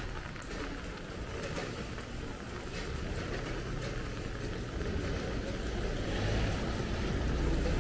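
Steady hiss of falling rain over a low street-traffic rumble that grows louder over the last two or three seconds as a vehicle approaches.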